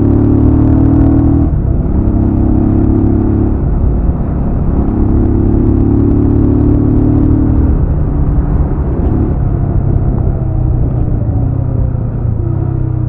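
Jawa RetroTrail 650's 650 cc single-cylinder engine running under way, heard from the rider's seat. The engine note holds steady for a second or two at a time, then shifts and breaks several times as the throttle is eased and opened again.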